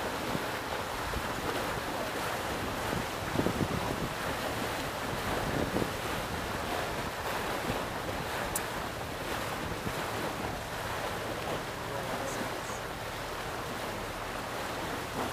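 Canal boat under way: steady wind buffeting the microphone over the wash of water around the hull.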